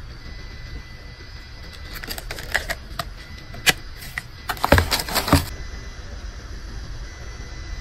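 Hinged plastic jewellery display boxes being handled: sharp clicks and taps of the plastic lids and frames, scattered at first and bunched into a louder run of clicks about five seconds in, then quiet handling.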